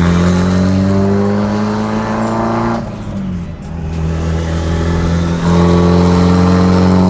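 Mitsubishi Lancer Evolution VIII's big-turbo 4G63 four-cylinder pulling under acceleration, its note climbing steadily. About three seconds in the note drops and quietens briefly, then it pulls again and gets louder about five and a half seconds in.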